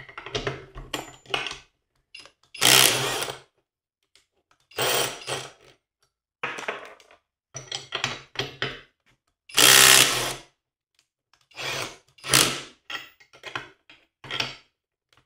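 Skil 12V right-angle impact driver hammering in repeated stop-start bursts on torqued bolts, working them loose in a breakaway torque test. The loudest bursts come about three seconds in and again around ten and twelve seconds.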